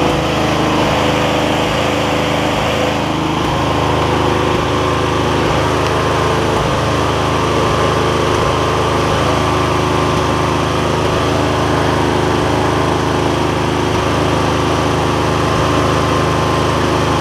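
Garden tractor's 20-horsepower V-twin engine running steadily at a constant speed, run to test the charging system after a new voltage regulator was fitted.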